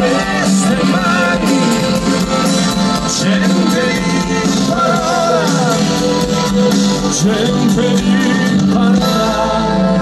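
Live rock band playing through the stage PA: acoustic guitar, electric bass, electric guitar, keyboards and drums, with a wavering lead melody line on top.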